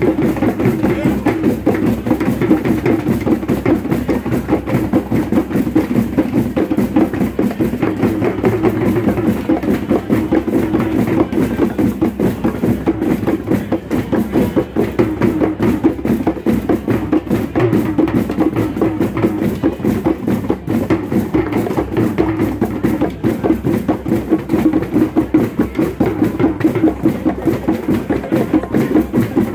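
Drum circle: many drums played together in a dense, steady groove, with wooden box drums (cajons), a djembe and a goblet drum struck with sticks.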